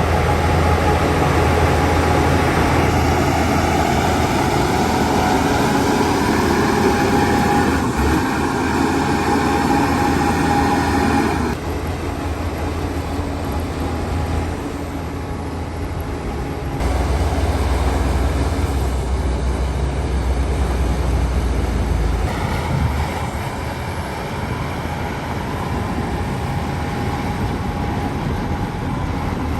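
Shantui DH17 C2 bulldozer working: its heavy diesel engine runs loudly under load. The sound shifts abruptly several times, with a higher, fuller sound in the first part.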